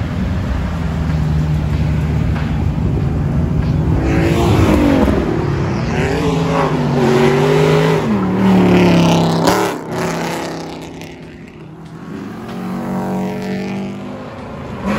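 A performance car's engine revving hard as it accelerates past and away, its pitch climbing and dropping back several times as it runs up through the gears, then fading. Another engine rises near the end.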